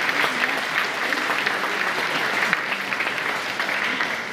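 Audience applauding: a dense patter of many hands clapping that starts to thin out and fade near the end.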